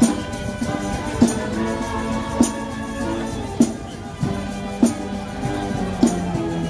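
A band playing a slow march: long held notes over a sharp drum stroke that falls about every second and a quarter.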